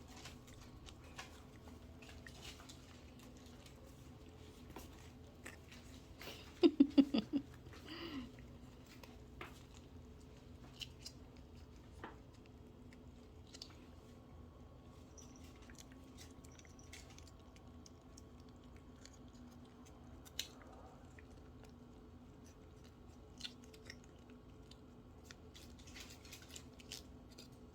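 Cats chewing treats: faint, scattered crunching clicks. About seven seconds in there is a brief, louder pulsing sound.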